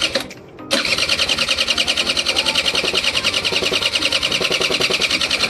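Honda Elite scooter's electric starter cranking the engine in a fast, even pulse: a short burst, a brief pause, then a long crank of about five seconds without the engine catching. The starter is powered by a jump from a car, with starter fluid in the intake.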